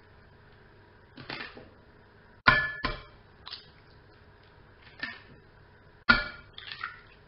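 Eggs knocked against the rim of a glass mixing bowl to crack them open. There are two sharp knocks in quick succession about two and a half seconds in and another sharp knock about six seconds in, with lighter clicks of shell and handling in between.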